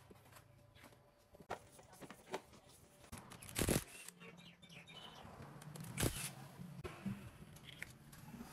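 Clicks, knocks and clatter of hand tools and plastic body panels while a scooter is being taken apart, with two louder short clatters about three and a half and six seconds in.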